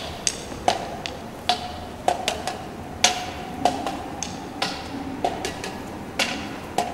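Drums played sparsely in free time: irregular sharp strikes, one or two a second, several with a short ringing tone.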